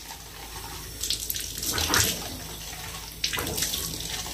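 Shower water spraying onto a dog's coat and splashing on the bathtub floor, growing louder in two surges, about a second in and again about three seconds in.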